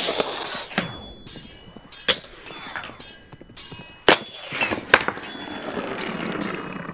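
Fingerboard tricks: a few sharp, irregularly spaced clacks as the small deck and wheels pop and land on a hard board, over background music.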